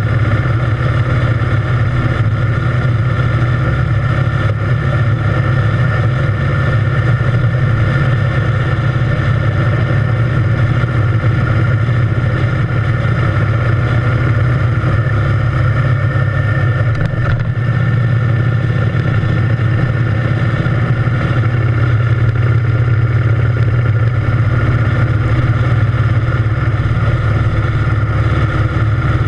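Triumph Thunderbird Storm's 1700 cc parallel-twin engine running steadily at cruising speed.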